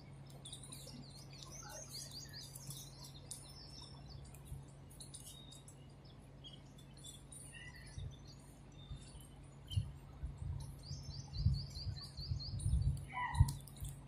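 House sparrows chirping: quick runs of short, high, falling chirps about a second in and again around eleven seconds, with scattered single chirps between. Soft low thumps come in from about eight seconds on, most of them near the end.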